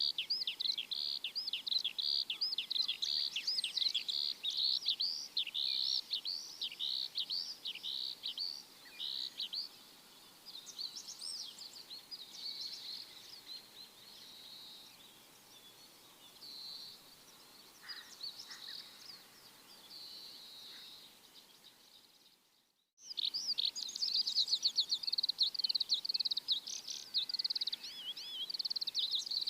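Small birds chirping in a dense, rapid chorus of short high notes. The chirping thins out and grows quieter through the middle, cuts out for a moment about 23 seconds in, then comes back dense and loud.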